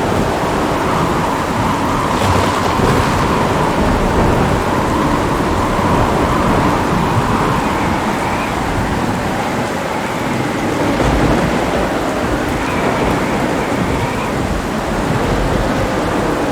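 Heavy rain falling steadily, with thunder rumbling low underneath.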